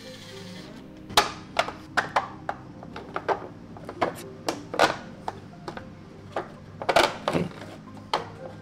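Background music under a string of irregular sharp clicks and knocks, starting about a second in, from 3D-printed plastic parts being handled and fitted together.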